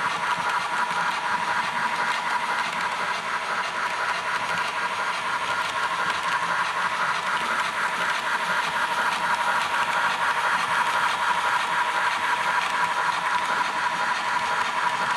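Model steam train running: the Fleischmann P 10 locomotive's DCC sound decoder giving a steady steam hiss with a fast repeating beat over a constant high tone.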